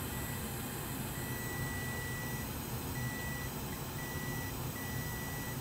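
Multimeter continuity beeper sounding a steady high tone in broken stretches as the probe makes and loses contact on a capacitor. The beep is the near-zero reading of a short circuit that is still on the rail. It plays over a steady low hum and hiss.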